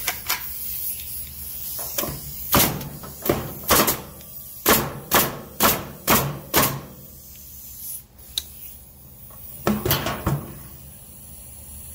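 Senco FramePro 701XP pneumatic framing nailer firing nails into a wooden board: a quick run of sharp shots about half a second apart, with a couple more knocks near the end. Not every trigger pull drives a nail (five of seven fire), so the gun is skipping, most likely from worn O-rings.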